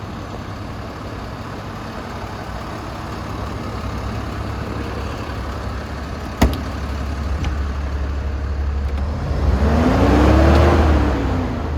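DAF CF250 truck's diesel engine idling, with one sharp click about halfway through. Near the end the engine is revved once, its pitch rising and then falling back to idle.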